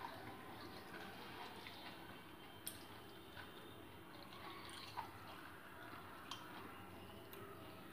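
Faint sounds of fingers mixing rice and vegetable curry on a stainless steel plate, with a few light, sharp clicks against the plate.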